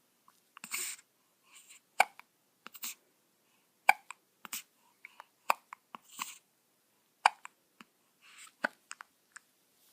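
Newborn baby hiccuping: a short, sharp hiccup about every two seconds, with soft breathy sounds between.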